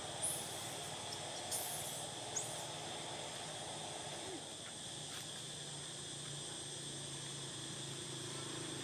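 Steady outdoor insect drone, a shrill even hum of crickets or cicadas, with three short, sharp, high chirps in the first two and a half seconds.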